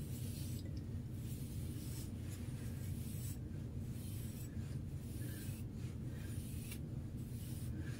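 A hairbrush drawn back through hair in repeated strokes, about one a second, over a steady low hum.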